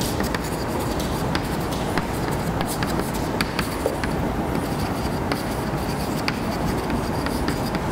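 Chalk writing on a blackboard: a run of irregular quick taps and short scratchy strokes as the chalk moves across the board, over steady background noise.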